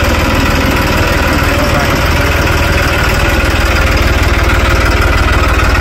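New Holland 3630 tractor's three-cylinder diesel engine running steadily, with a dense low throb.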